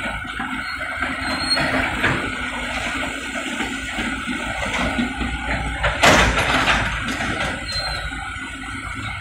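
Komatsu PC78US mini excavator's diesel engine and hydraulics running steadily as it digs, with one sharp bang about six seconds in.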